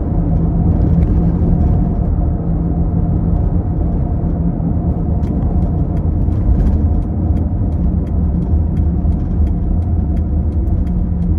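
Steady engine and road noise of a car being driven, a continuous low drone.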